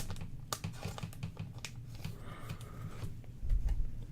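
Trading cards being handled at a table: scattered light clicks and taps with a brief soft rustle about two seconds in, over a faint low hum.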